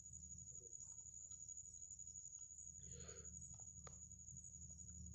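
Faint, steady high-pitched chirring of night insects, with a few faint ticks and one soft brief sound about three seconds in.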